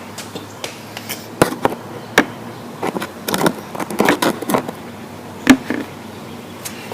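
Irregular clicks and knocks of a BMX bike being handled and set up, with a cluster of rattling hits in the middle and one louder knock near the end.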